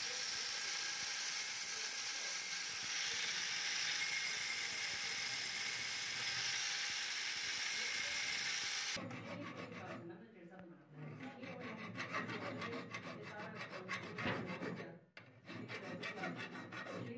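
An angle grinder's abrasive disc grinding the rusty steel end of an antique meat grinder's crank handle, running steadily with a high whine. About nine seconds in it stops, and a hand file rasps across the metal in quick back-and-forth strokes.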